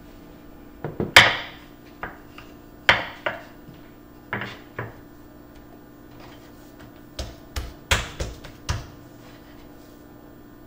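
Kitchen utensils knocking and clattering: a metal loaf pan and a wooden rolling pin set down and moved on a wooden cutting board and counter. The sharp knocks come in two groups, the loudest about a second in and a second flurry near the end.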